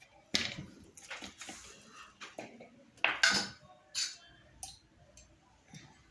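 Eating rice by hand from a steel plate: a few sharp clicks and scrapes of fingers against the plate, with quieter eating noises between.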